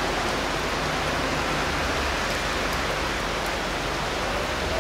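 Rain pouring down steadily in a thunderstorm, an even, unbroken rush of sound.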